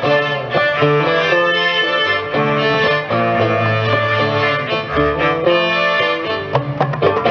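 Acoustic band playing a Turkish belly-dance tune: a plucked saz carries the melody over strings and a hand drum.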